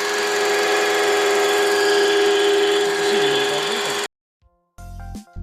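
Steady humming drone from a Hyundai Solaris's worn belt idler pulley, with the engine running, heard through a homemade tube stethoscope. It cuts off suddenly about four seconds in, and music starts near the end.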